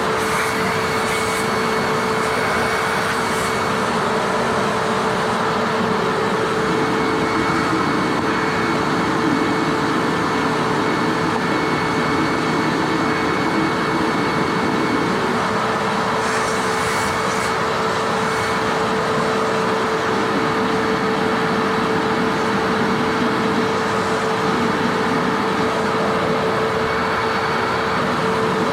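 Hoover WindTunnel Self-Propelled Ultra bagged upright vacuum cleaner running steadily with its motor whine, its hose sucking dirt out of a Dyson DC25 canister bin. Short crackling hiss of debris going up the hose comes a few times, near the start and about halfway through.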